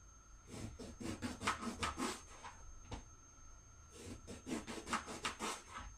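Kitchen knife sawing through a large brinjal (eggplant), cutting thick round slices: two bouts of quick rasping strokes with a short pause between, and a single click in the pause.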